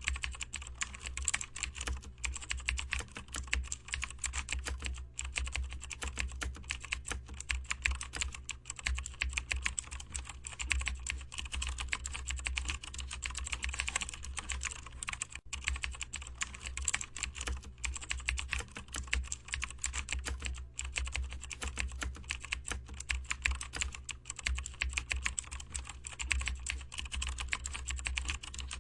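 Fast, continuous typing on a computer keyboard, many keystrokes a second, broken by a few brief pauses.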